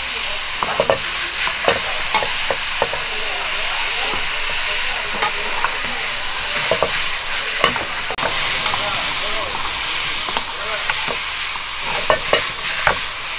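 Egg frying in oil in a pan, with a steady sizzle, as a giant Korean rolled omelet (gyeran-mari) is rolled and pressed. Scattered light taps and scrapes of a silicone spatula against the pan.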